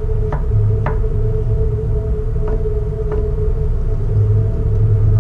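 A knife slicing mushrooms on a cutting board: four short taps as the blade meets the board, two in the first second and two more about halfway through. Under them runs a steady low hum.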